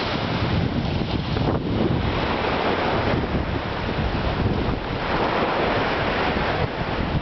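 Small waves washing up on a sandy beach, with wind buffeting the microphone in gusts.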